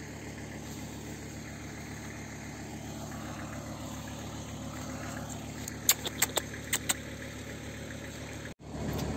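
A steady engine hum, like a motor idling, with a few short sharp clicks about six seconds in. The sound drops out for a split second near the end.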